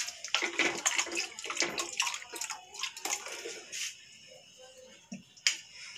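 Water running and splashing, as from a tap, for about four seconds, then stopping.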